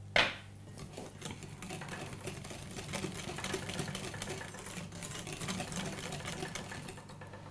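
Wire balloon whisk beating creamed butter, sugar, egg and vanilla batter in a glass bowl: a fast, steady clatter of the wires against the glass. A sharp clink at the very start.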